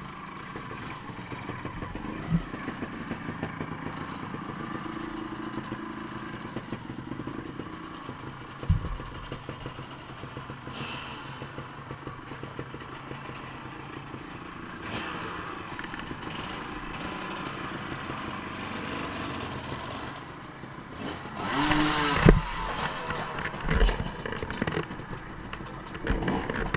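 Enduro dirt-bike engines idling and revving, with a few sharp knocks. The sound grows louder and busier, with several thumps, from about 21 seconds in.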